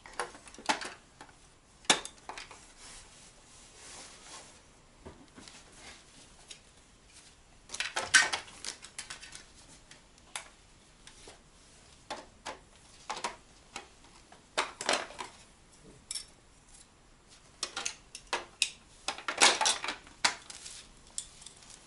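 Small hard toy pieces clicking and clattering as they are handled, in irregular clusters of sharp clicks and knocks, with the busiest bursts about eight seconds in and near the end.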